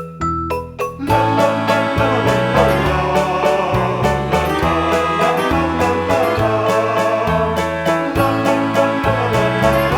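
Instrumental background music: a few sparse plucked notes, then about a second in a full arrangement with a steady beat joins.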